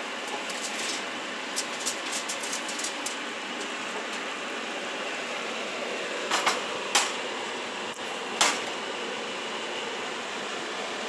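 Baked grits casserole sizzling and bubbling in a glass baking dish in the oven, a steady hiss with small pops. About six seconds in, a few sharp clinks as the glass dish is slid out on the metal oven rack.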